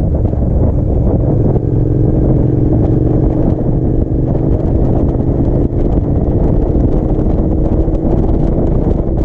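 Wind buffeting the microphone of a camera on a moving motorcycle, a steady low rumble, with the bike's engine running at a steady cruise underneath, its tone showing from about a second and a half in and fading near the end.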